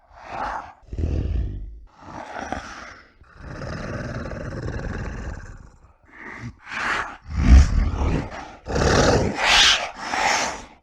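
A string of monster roar and growl sound effects: short separate roars, one longer drawn-out roar through the middle, then louder, shorter roars near the end.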